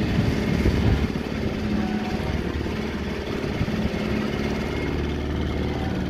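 Small boat outboard motor running steadily as the boat moves along.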